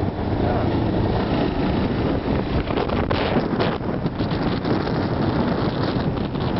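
Quad bike (ATV) engine running while riding along a dirt road, with heavy wind buffeting on the microphone.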